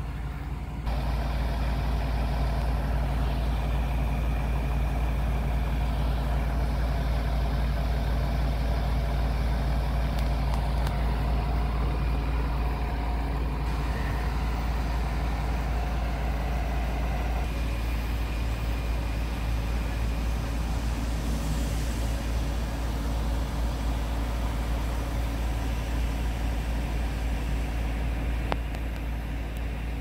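Diesel engines of parked fire trucks idling: a steady low rumble with a constant hum, which grows louder about a second in.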